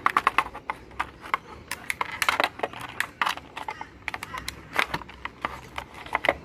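Fingers tapping and handling a cardboard box and its plastic insert: a quick, irregular run of light clicks and taps.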